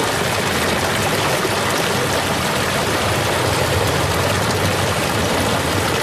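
Waterfall: falling water rushing in a steady, even noise that does not change.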